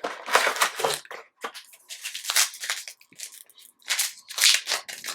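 Trading card pack wrapper crinkling and crackling in irregular bursts as it is handled and pulled open.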